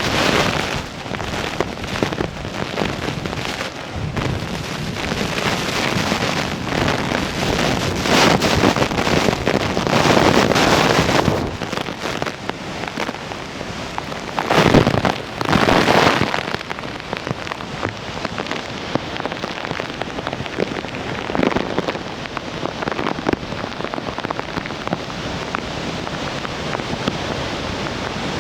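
Nunobiki Ontaki waterfall swollen with typhoon rain: a steady loud rush of heavy falling water, with louder surges about eight seconds in and again about fifteen seconds in.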